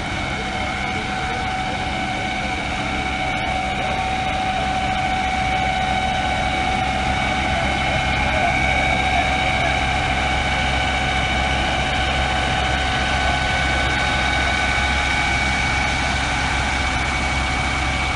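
A motor running steadily with a constant high whine over a low rumble, growing a little louder about six seconds in.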